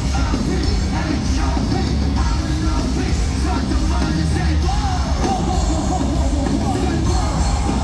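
Live K-pop concert music played loud through the arena PA: a heavy bass beat with sung and shouted vocals, recorded from the audience.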